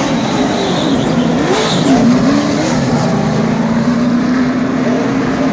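NASCAR Cup stock cars' pushrod V8 engines running on pit road, a loud steady drone whose pitch rises and dips about two seconds in, then holds level.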